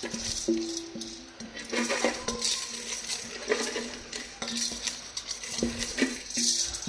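A wooden spoon scraping and knocking against a metal bowl as washed, wet rice is scraped out of it into a cooking pot, giving irregular clinks and scrapes.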